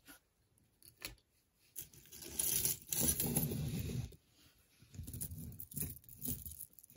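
Tangled jewelry being handled and pulled apart by hand: chunky metal chain links and beaded strands rattling against each other and scraping on the tabletop. A couple of light clicks in the first second, then two longer stretches of rattling about two seconds in and from about five seconds in.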